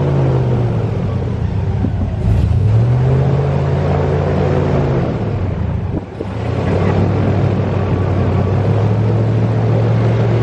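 Airboat engine and propeller running loud and steady, the engine note dropping about two seconds in and climbing back, then easing off briefly around six seconds before holding steady again.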